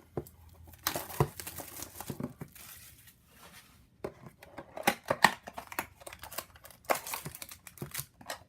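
Trading-card packaging being torn and crinkled open by hand, in irregular bursts of crackling and tearing.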